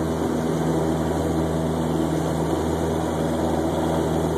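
Single-engine light airplane's engine and propeller running steadily at takeoff power, heard from inside the cabin.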